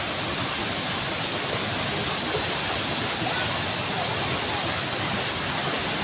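Steady rushing noise of a fast mountain river pouring over rocks below a waterfall, a continuous hiss of white water.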